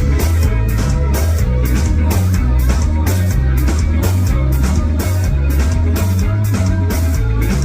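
Rock band music with a drum kit, guitar and heavy bass, the drums keeping a steady beat of about two hits a second.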